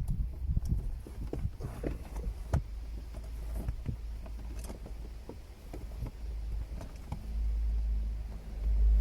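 Scattered knocks, clicks and rustles of a thick power cable being pushed through car trim and tucked under the carpet. A steady low hum comes in about seven seconds in.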